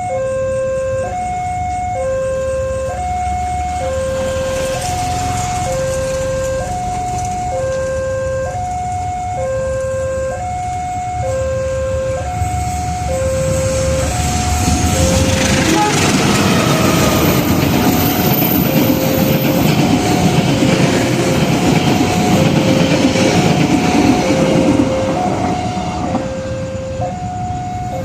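Level-crossing warning alarm sounding its two alternating tones, high and low, switching about twice a second. From about halfway, the rumble and rail noise of a passing Indonesian train rise over it and stay loud until near the end.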